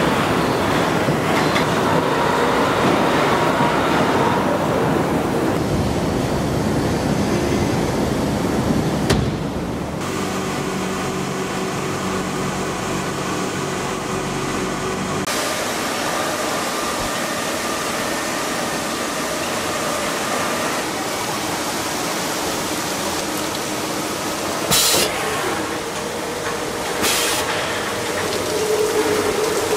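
Factory machinery noise in a crankshaft plant, changing abruptly several times: first a loud rough rumble, then a steady machine hum with a low drone, then a lighter hiss with two short sharp bursts near the end and a steady tone coming in at the very end.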